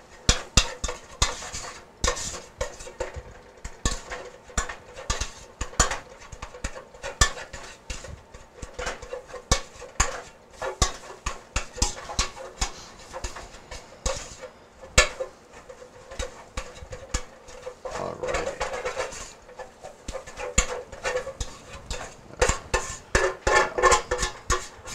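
A spoon stirring and scraping cornmeal sauteing in beef fat in a stainless steel pot, with irregular clinks and scrapes against the pot.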